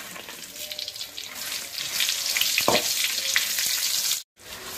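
Dried red chillies sizzling in hot coconut oil in a metal pan as a flat steel spatula scrapes and stirs them. The sizzle grows louder about two seconds in, then cuts off suddenly for a moment near the end.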